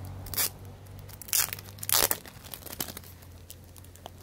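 Clear plastic wrap on a hardcover book crinkling and tearing as it is pulled open, in three sharp bursts, the loudest about two seconds in, with smaller crackles between.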